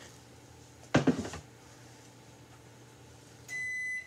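A single knock about a second in, then near the end a high electronic beep starts, a steady tone about half a second long, the first of a series of beeps from a household appliance.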